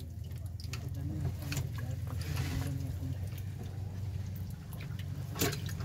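Water dripping and sloshing around freshly netted fish in a boat's basin, over a steady low rumble, with scattered light clicks and a sharp knock near the end.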